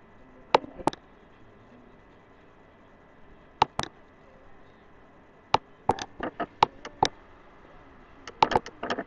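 A series of sharp clicks over a faint steady hiss. They come in a pair about half a second in, another pair near the middle, and quick clusters of several clicks later on.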